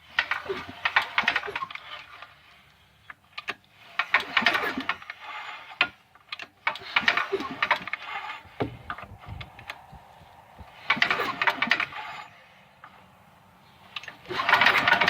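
Old Tecumseh snowblower engine being turned over in five short bursts a few seconds apart, each a rapid run of clicks. The owner puts the clicking down to the valves or a connecting rod bearing.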